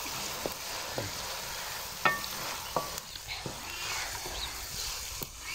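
Hot oil sizzling steadily in a metal karahi as ginger-garlic paste fries, stirred with a wooden spatula, with a few sharp clicks scattered through it.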